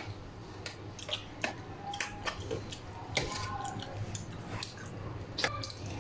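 Metal spoon clicking and scraping against a foil tray while spreading minced-meat filling, a few sharp irregular clicks over a steady low hum.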